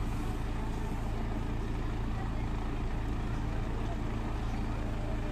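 A motor vehicle engine idling: a steady, even low hum.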